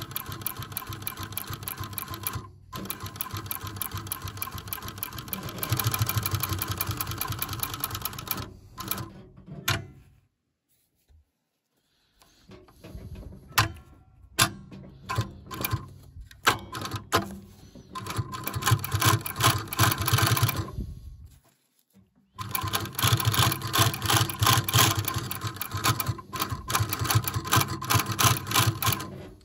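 Post-bed sewing machine with a knurled roller foot stitching a leather lining onto canvas, running in fast runs of several seconds. It stops briefly a few times, with a pause of about two seconds around ten seconds in.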